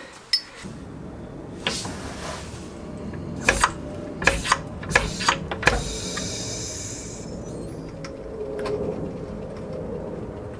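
Metal clanks and knocks from hand tools and parts while a car's rear suspension is being dismantled: a brief scrape, then a quick run of sharp knocks, followed by a hiss lasting just over a second.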